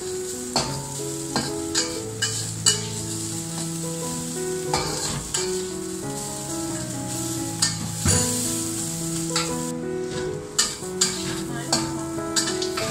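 Bitter gourd sizzling as it is stir-fried in a stainless steel wok, with a metal spatula scraping and clanking against the wok many times. Background music plays underneath.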